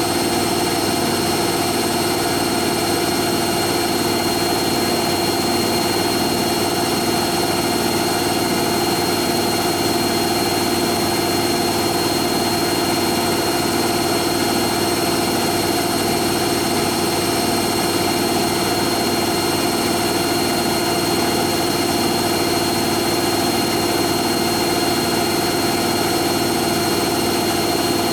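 Hoover Nextra HNL71463D washing machine in its final spin, drum and motor running at a steady high speed with a constant whine and a faint regular pulse.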